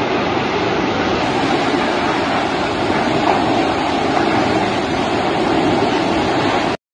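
Large oil-depot fire burning, heard as a loud, steady rushing noise that cuts off suddenly near the end.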